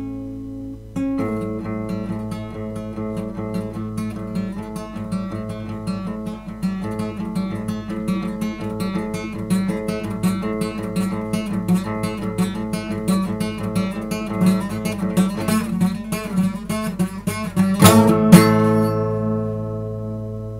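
Acoustic guitar music: a fast run of plucked notes that grows denser and louder, then a loud strummed chord near the end that is left to ring and fade.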